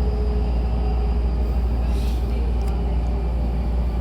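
Hankyu commuter train running between stations, heard inside the passenger car: a steady low rumble of wheels and motors with a faint steady whine, and a brief hiss about halfway through.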